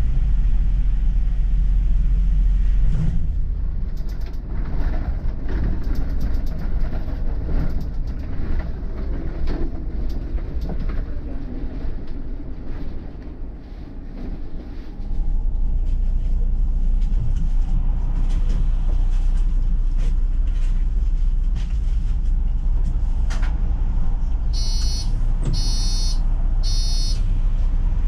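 City bus running, a steady low engine and road rumble heard from inside. The rumble eases and drops for a while in the middle, then comes back strongly. Near the end come three short high beeps, a door-closing warning signal.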